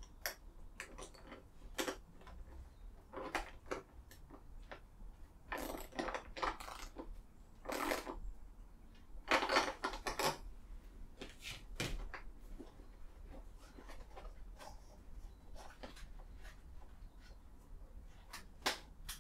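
Handling sounds of a plastic welding helmet being fitted to a powered-respirator headpiece: scattered clicks and knocks from the helmet and its mounting bracket, with a few short scraping rustles, the loudest a little past the middle.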